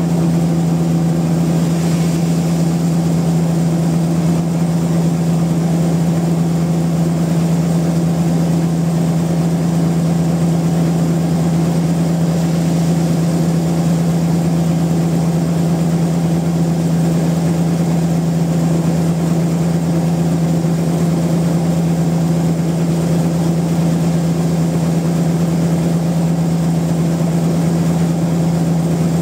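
Sawmill machinery running steadily, a constant engine-like drone on one low pitch that does not change.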